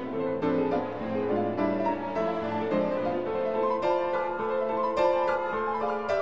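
Instrumental background music, a continuous flow of pitched notes that change several times a second.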